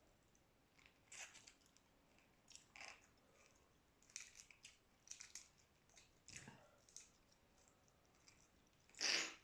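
Scattered short crackles and clicks from boiled shrimp being handled and eaten by hand, with a louder, longer crackle near the end.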